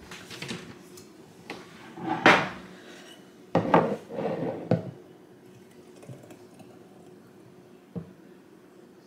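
Kitchen handling clatter of a glass mason jar and a plastic blender cup knocking against a countertop: a few scattered knocks and clinks, the loudest about two seconds in, a cluster of clattering around four seconds in, and one small knock near the end.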